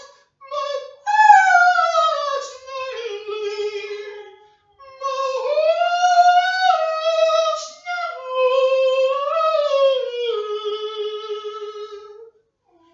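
A man singing alone into a handheld microphone, without accompaniment, in a high voice. He sings two long phrases of held notes that slide up and down in pitch, and stops shortly before the end.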